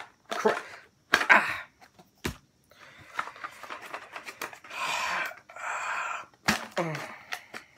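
A Pringles can being opened by hand: a few sharp clicks and knocks of the can and its plastic lid, then scratchy rustling as the foil seal on top is picked at and peeled.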